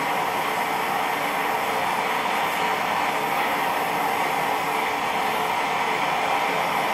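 Small gas forge's burner running with a steady, even rushing noise, the blade inside it being brought up to hardening heat.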